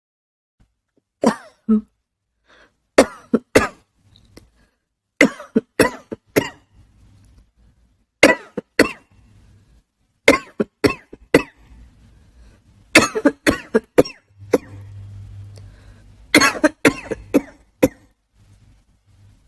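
A person coughing in short fits of two to four coughs, a fit every two to three seconds.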